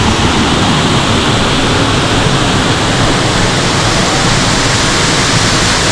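Waterfall close by: a loud, steady rush of falling water with a deep rumble underneath.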